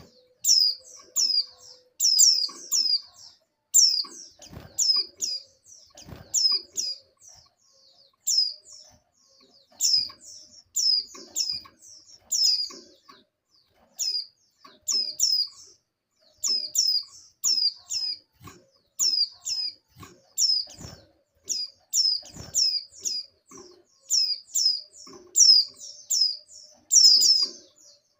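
Female white-eye (pleci) calling in breeding condition: short, high, downward-sweeping chirps in quick clusters of two to four, repeated about every second or two. A few faint low knocks come between the calls.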